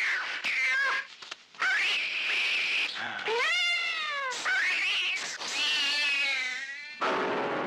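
Domestic cat yowling at a cobra in a series of long, drawn-out calls, each bending up and down in pitch, with short breaks between them. These are the threat yowls of a cat confronting a snake.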